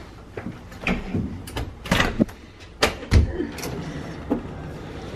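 A run of short clicks and knocks, with one heavy low thump about three seconds in.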